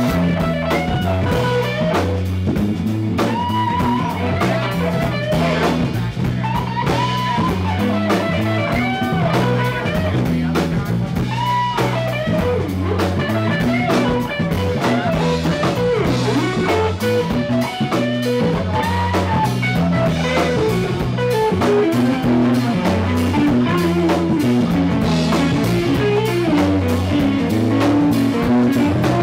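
Live instrumental jazz-funk band: an electric guitar plays a lead line with bending notes over electric bass and a drum kit.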